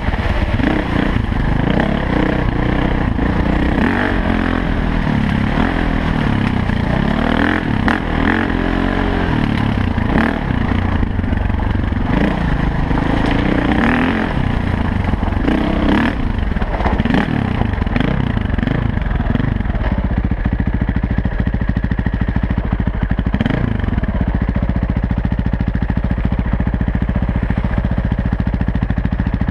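Dirt bike engine up close, revving up and down repeatedly as it is ridden over a rough forest trail, with a few sharp knocks and rattles. About twenty seconds in, it settles to a steadier, even note.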